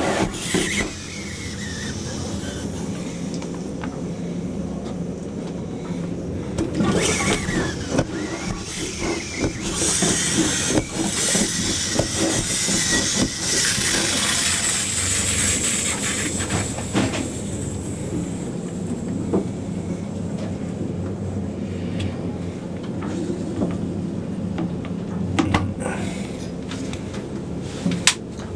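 A steady low mechanical hum, with rustling and knocks from handling close to the microphone now and then.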